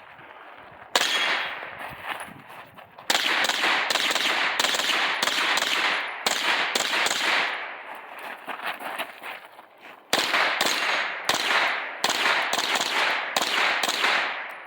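Pistol-calibre carbine firing a rapid string of shots, many coming in quick pairs about a third of a second apart, with a pause of a couple of seconds midway before firing resumes.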